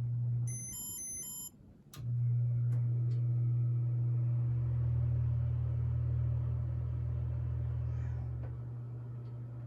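Casablanca Stealth ceiling fan motor humming steadily as it runs through its test mode. The hum cuts out briefly while two short electronic beeps sound, a click follows about two seconds in, and the hum returns, slowly getting quieter toward the end.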